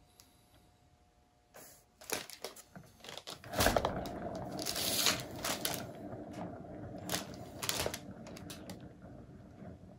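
A few clicks, then from about three and a half seconds a paint-pouring turntable spinning a wet canvas: a steady rolling rumble with a faint hum that slowly eases.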